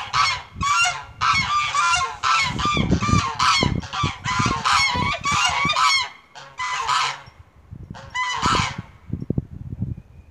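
A flock of domestic geese honking together after being woken, many overlapping calls at once. After about six seconds the chorus thins to a few scattered honks.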